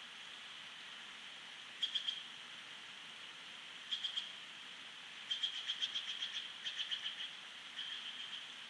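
Bald eagle calling: bursts of quick, high chirping notes, a few at a time at first, then a longer rapid run of chattering notes, then a shorter burst near the end.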